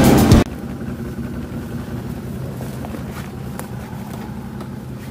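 Music cuts off about half a second in, leaving a quad bike's engine running steadily.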